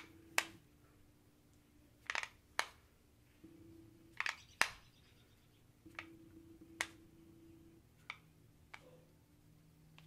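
Short, sharp clicks of a Terviiix hair crimper's plastic plates clamping shut and opening again on a section of hair. Several come in quick pairs, about two seconds apart.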